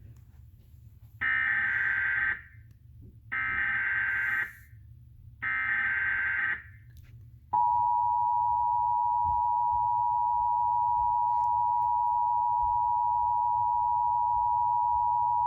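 Emergency Alert System tones on a TV broadcast, announcing a tornado warning. First come three buzzy digital SAME header bursts, each about a second long and about two seconds apart. Then, about halfway through, the steady two-tone EAS attention signal starts and holds.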